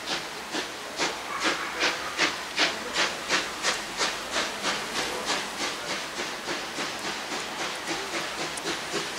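Steam locomotive working hard under load: sharp exhaust chuffs at about two and a half a second, quickening to about three a second as it gathers speed, over a steady hiss of steam.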